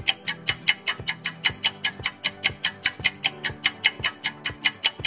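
Quiz countdown-timer sound effect: rapid, even clock-like ticks, about six a second, over soft sustained background music.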